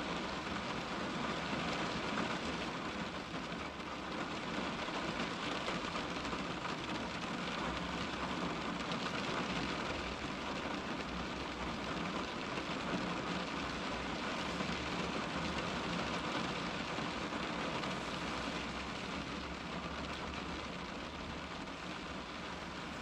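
Steady rain pattering on a car's glass, a dense even hiss of drops heard from inside the car.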